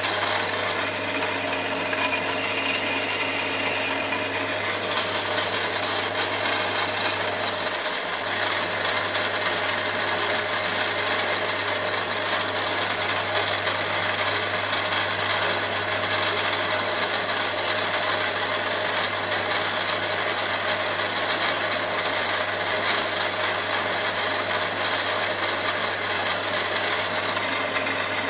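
Benchtop milling machine running steadily, drilling the cylinder-head bolt-hole pattern into a solid aluminium cylinder block, with a constant motor hum. A few faint extra tones come in briefly about a second in.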